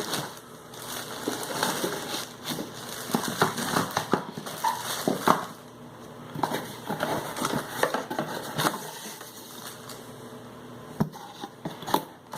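Cardboard box being opened by hand and its contents pulled out: irregular rustling and crinkling with scattered sharp clicks and knocks, the sharpest about five seconds in and near the end.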